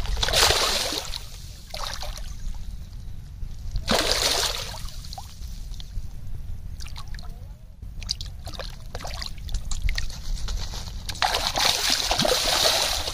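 A hooked mrigal carp thrashing at the water's surface on a hand line, splashing in three big bursts (at the start, about four seconds in, and near the end) with smaller slaps between.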